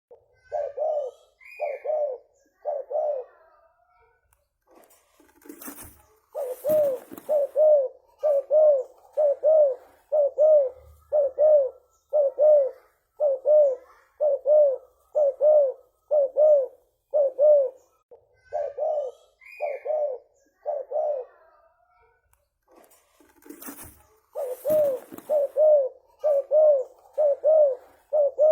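Spotted dove (tekukur) cooing: a long run of short, low coos repeated at about one and a half a second, in two bouts separated by pauses. A brief burst of noise comes just before each bout resumes.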